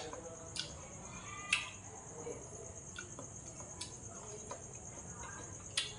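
Chopsticks and a spoon clicking against a rice bowl, a few sharp clicks spread through, with soft chewing between. A steady high insect chirring runs behind it throughout.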